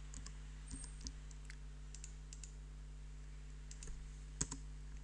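A few scattered computer mouse clicks, the loudest near the end, over a steady low hum.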